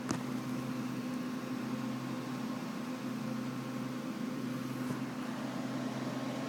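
Desktop computer running: a steady whir and hum of its cooling fans and spinning hard drives, with a short click just after the start.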